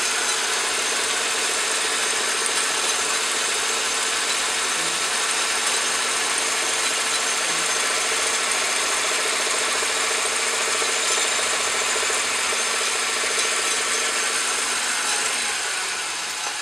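Craftsman Atlas metal lathe running steadily while its cutting tool turns down a square aluminum bar, throwing off chips. The sound eases slightly near the end.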